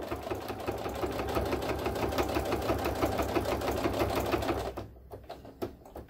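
Baby Lock Soprano sewing machine running a straight stitch through sew-on Velcro tape and cotton fabric, its needle going up and down rapidly and evenly. It stops about five seconds in, and a few light clicks follow.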